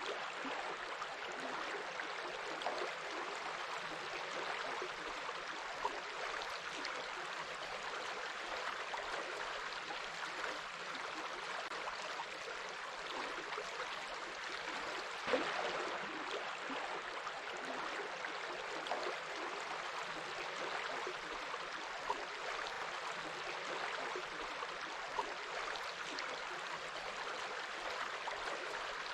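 A small stream running steadily, gurgling and splashing with many small, sharp water sounds.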